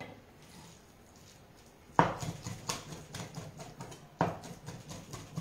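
Chef's knife chopping raw salmon on a wooden cutting board: quiet at first, then from about two seconds in a run of sharp knocks of the blade on the board, about three a second and uneven, the first the loudest.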